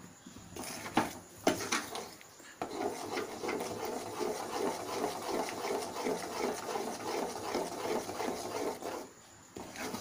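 Spatula stirring and scraping thick Mysore pak mixture of gram flour, ghee and sugar syrup in a metal pan over low heat. Two knocks on the pan come about a second in, then steady rapid scraping runs from about two and a half seconds until near the end.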